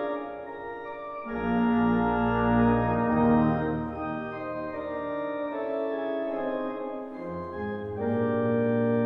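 Organ playing held full chords, with deep bass notes coming in about a second in and changing under the chords.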